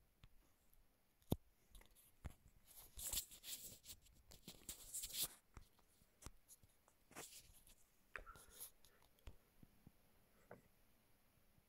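Near silence broken by faint scattered clicks and a few short rustling scrapes. The loudest is a sharp click about a second in.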